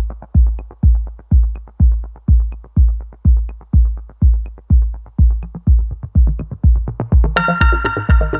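Electronic dance music: a steady, heavy kick drum beat about twice a second with light ticks between the beats. A bright synth chord comes in near the end.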